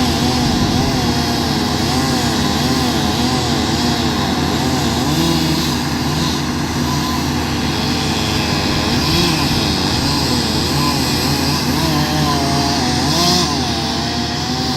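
Chainsaw engine running steadily, its pitch rising and falling as it cuts into a dead tree.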